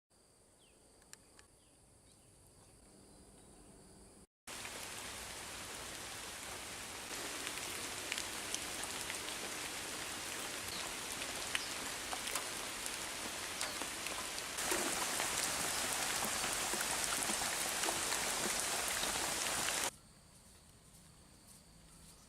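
Steady hiss of falling water, pattering like rain, that comes in suddenly after a short spell of faint outdoor ambience with thin high steady tones, grows louder in two steps and cuts off abruptly near the end.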